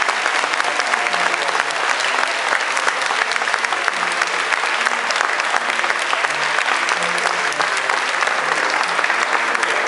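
A crowd of guests applauding: dense, steady clapping with no break.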